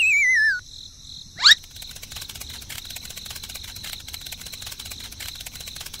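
A falling, wavering whistle ends about half a second in, followed by a quick rising sweep about a second later. After that, crickets chirp in a dense, steady high chirring.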